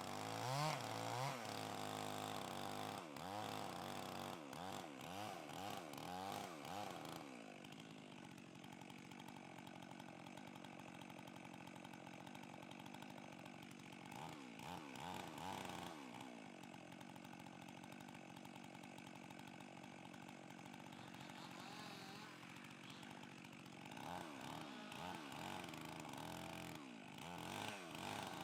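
Chainsaw revving up and down repeatedly for the first several seconds, then running more steadily at a lower speed, with more revving near the end.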